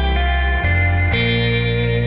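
Instrumental background music: held notes over a deep bass line, the chords changing every half second or so.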